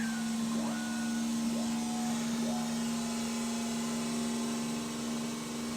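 Steady buzzing drone with a constant low tone. Over it come three quick upward pitch swoops in the first three seconds, each settling briefly on a held note.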